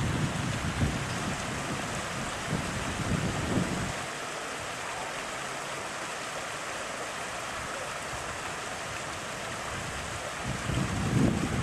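Steady rush of flowing floodwater. Wind buffets the microphone with low gusts in the first few seconds and again near the end.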